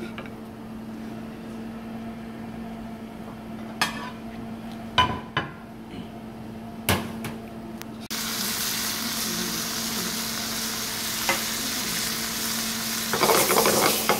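Sea bream fillets sizzling in a hot frying pan: the sizzle starts suddenly about halfway through as the fish goes in, and grows louder near the end. Before it, a few knocks of a wooden spatula on the pan over a steady low hum.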